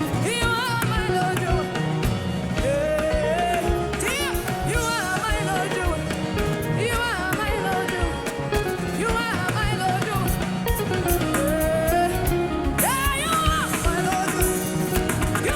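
Live worship band music with singing: a steady beat with bass, guitar and drum kit under a wavering, sustained melodic vocal line.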